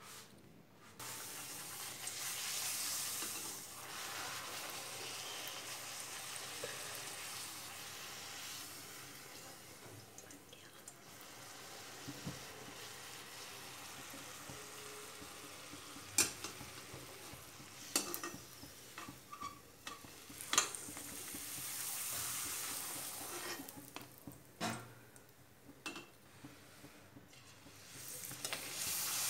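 Gol gappe puris (rolled wheat-and-semolina dough rounds) frying in hot oil in a steel kadhai, a steady sizzle. In the second half come a few sharp metal clicks as the slotted steel spoon knocks against the pan.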